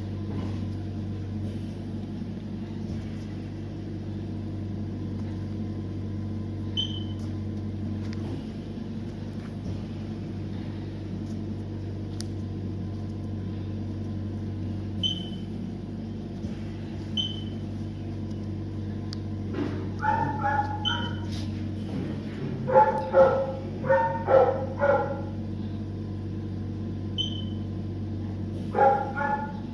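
A dog barking, a run of about five short barks in the second half and a couple more near the end, over a steady low hum with a few short high beeps.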